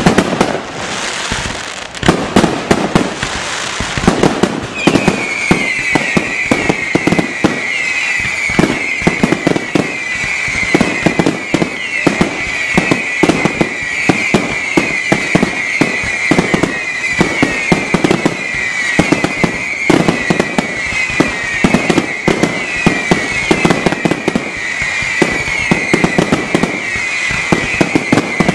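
Fireworks finale: a dense, continuous barrage of aerial shell bursts and bangs. From about five seconds in, a shrill, constantly repeating whistle runs along under the bangs.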